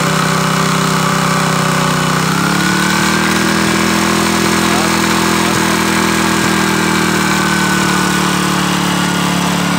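Small engine running steadily, driving the hydraulic pump for a conductor compression press. Its pitch steps up a little about two seconds in, then holds.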